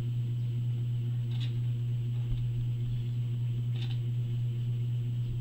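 Steady low electrical hum in the recording, with two faint short clicks about a second and a half and almost four seconds in.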